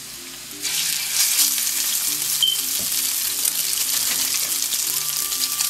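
Ahi tuna steak laid into smoking-hot olive oil in a skillet to sear, setting off a loud sizzle that starts suddenly about half a second in and then runs steadily.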